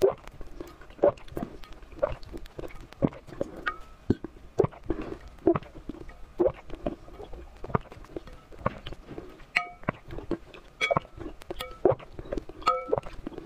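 Close-up mouth sounds of raw eggs being slurped from a spoon and swallowed: wet smacks and gulps about twice a second. A few short ringing clinks come from the metal spoon, mostly in the second half.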